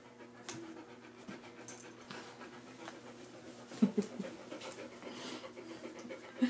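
A dog panting with heavy, quick, rhythmic breaths close to the microphone, with a couple of brief louder sounds about four seconds in.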